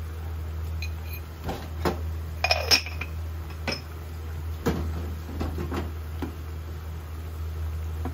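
Spoon clinking and tapping against a ceramic salt pot and pan edge while salt is added to a large pan of boiling pasta water: a string of sharp clinks, loudest in a quick cluster about two and a half seconds in, then a few scattered taps, over a steady low hum.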